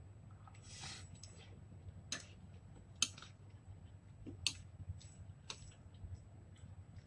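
A metal fork clinks a few times against a bowl while stirring and lifting instant noodles, with faint chewing and slurping sounds of eating.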